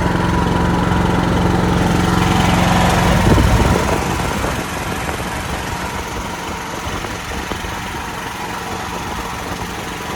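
Generator's engine running unloaded on an exercise run. A few seconds in, its steady hum drops away and the sound gets a little quieter and rougher.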